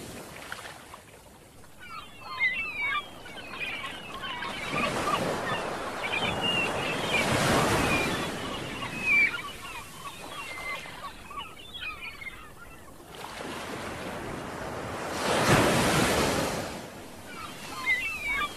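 Ocean surf breaking on the shore, the rush of water swelling up three times. Small birds chirp over it for much of the time.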